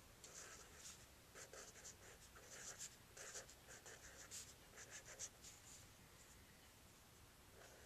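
Faint scratching of a pen writing on spiral notebook paper, in quick irregular strokes. The strokes pause about five and a half seconds in and start again near the end.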